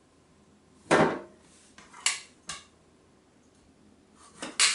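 Kitchen knife and food being handled on a cutting board: one loud knock about a second in, two lighter clicks a second later, and a short cluster of knocks near the end.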